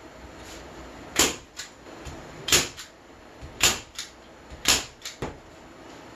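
Staple gun firing four times, about once a second, fastening carpet onto a wooden leg; each loud snap is followed by a fainter click.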